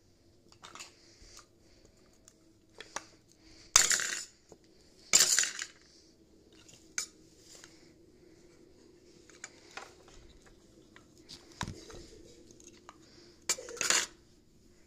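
Hard red toy cubes dropped and clattering into a plastic bowl with a plastic spoon in it. Several short clatters, the loudest about four and five seconds in and two more near the end, with smaller taps and knocks between.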